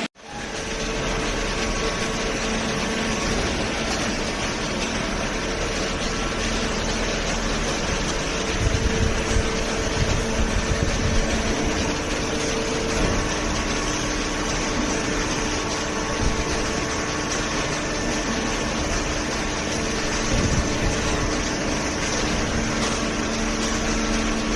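Hydraulic cardboard baler running: a steady hum from its electric motor and hydraulic pump, with a few low bumps around eight to eleven seconds in.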